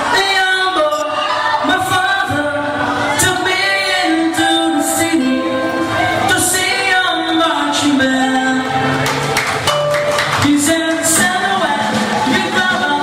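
Live rock band playing: a lead vocalist singing over electric guitar, bass guitar and drum kit, with repeated cymbal strokes.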